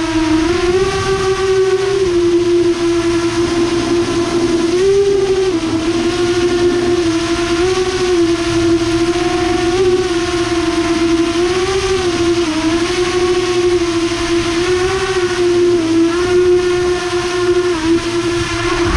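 7-inch FPV quadcopter with EMAX 2807 motors and three-blade props in flight: a steady propeller drone whose pitch rises and dips a little every second or two as the throttle changes.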